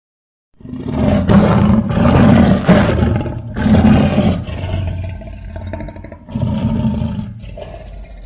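Designed creature roar for a tapiraphant, a fictional tapir-elephant animal. A loud, rough roar begins about half a second in and swells several times, eases into lower growling, rises again in a second roar, then trails off.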